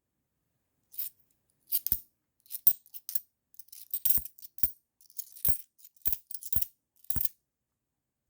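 Cupronickel 50p coins clinking together as they are handled and sorted by hand, a dozen or so sharp, irregular clinks starting about a second in.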